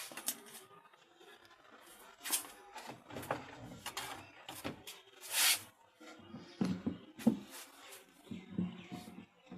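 Scattered knocks, clicks and handling noise of hands working on washing-machine parts, with a brief hiss about five seconds in.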